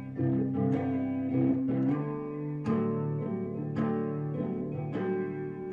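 Guitar playing an instrumental passage between verses of a song, chords plucked or strummed about once a second and left to ring, changing chord about halfway through.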